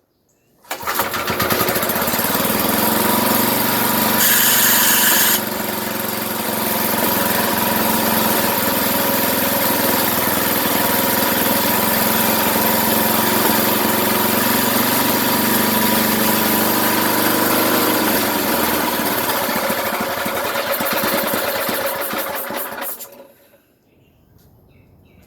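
A 33-year-old Briggs & Stratton 5 hp single-cylinder flathead engine fires about a second in and runs for some twenty seconds, back to life after sitting. It is briefly louder around four to five seconds in, then stops near the end.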